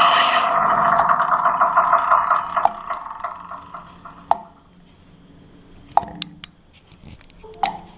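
Water-drop plops in a horror sound-effect mix: a sustained eerie tone fades out over the first few seconds, then single ringing drips fall about every second and a half.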